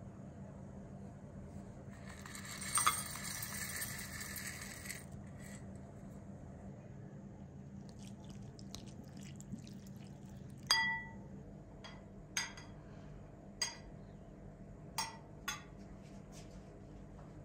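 Slivered pistachios and almonds tipped into a china bowl with a dry rattling hiss for about three seconds, then a handful of sharp ringing clinks of china and metal knocking together, the first and loudest about halfway through.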